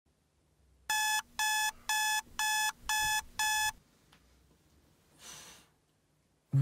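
An electronic alarm beeping six times, about two beeps a second, each beep short and pitched, then stopping. A brief soft rush of noise follows about five seconds in.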